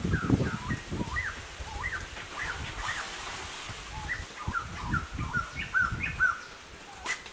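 Birds chirping, many short rising and falling whistled notes repeated throughout, over irregular low thuds and knocks that are loudest in the first second and again about two-thirds of the way through.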